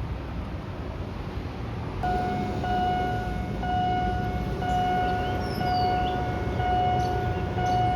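Railway level-crossing warning signal sounding, starting about two seconds in: a steady electronic tone that pulses about once a second, over a constant low rumble. A few short rising chirps sound faintly above it.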